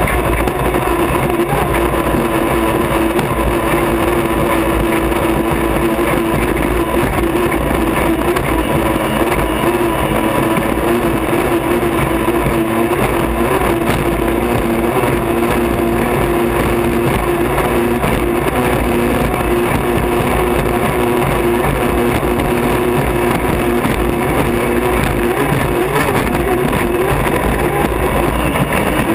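Unlimited hydroplane's turbine engine running flat out at racing speed, heard from inside the cockpit: a steady, unbroken whine over a dense rush of wind and water.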